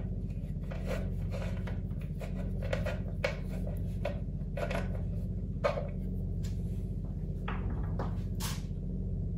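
A 5 mm T-handle Allen key turning out small metal bolts by hand: light, irregular clicks and scraping as the key works in the bolt heads, over a steady low hum.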